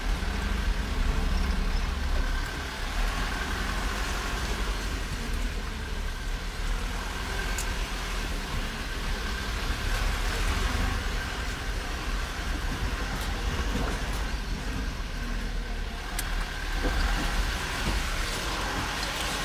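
Car cabin noise while driving slowly: a steady low engine and road rumble heard from inside the car, with a few faint ticks.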